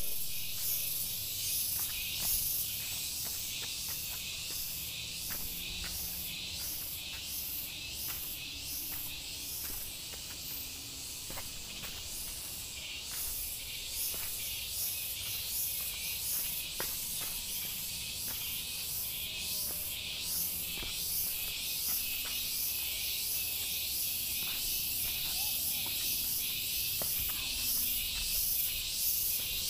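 Forest insects buzzing in a high hiss that pulses about three times a second, with footsteps on a dirt trail underneath.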